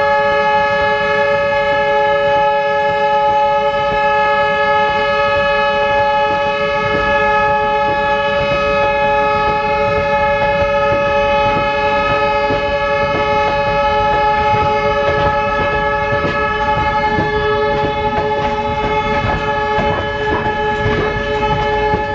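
Train horn held as one long, steady chord of several tones. In the second half it is joined by the rhythmic clatter of freight-wagon wheels passing over rail joints.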